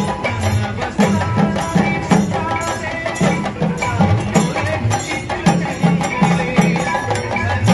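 Loud procession music: a steady, repeating drum pattern with a melody held over it.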